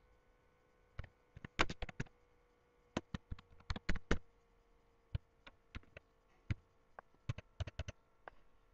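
Typing on a computer keyboard: irregular runs of sharp keystroke clicks with short pauses between them.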